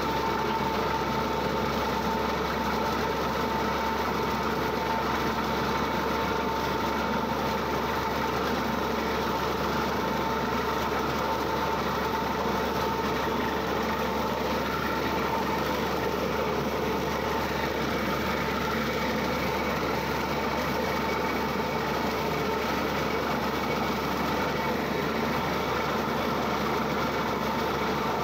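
Borewell drilling rig running steadily during drilling: a constant engine drone with a steady high tone over it.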